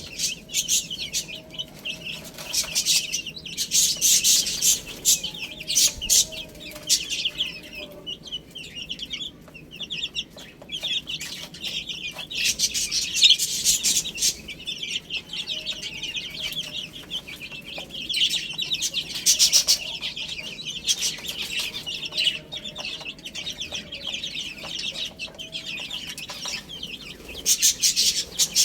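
A group of baby chicks peeping constantly, many high-pitched chirps overlapping in a busy, unbroken chatter that swells and dips in loudness.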